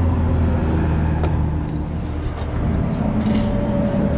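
A vehicle engine running close by: a steady low hum that fades about two seconds in, with a higher tone coming up near the end. Over it come a few light clicks and rustles of metal parts and packing being handled.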